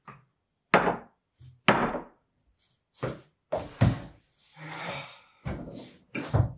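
Wooden knocks and thuds at a dinner table, about seven of them: a glass beer bottle set down on the wooden tabletop and a wooden chair pulled out and sat into, with a short scrape a little before five seconds in.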